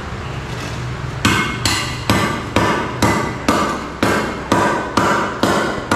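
Hammer blows on a concrete hollow block, a steady run of sharp knocks about two a second that starts about a second in: the block is being broken down to size.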